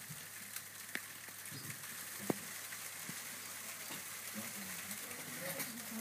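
Café room tone: a steady hiss with a few sharp clicks, the loudest about two seconds in, and faint voices near the end.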